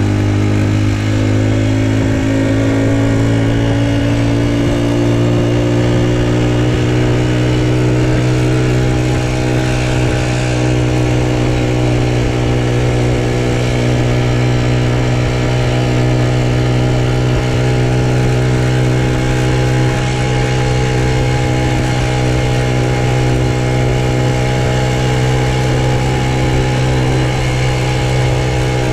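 Honda Super Cub's single-cylinder four-stroke engine running under way, its pitch climbing gently over the first several seconds as it gathers speed, then holding steady.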